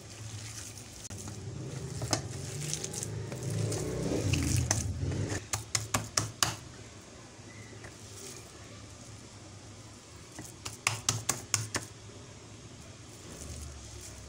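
A hand kneading and pressing minced beef mixture in a plate: soft squishing, with two runs of quick wet slaps, about half a dozen each, a third of the way in and again about three quarters through.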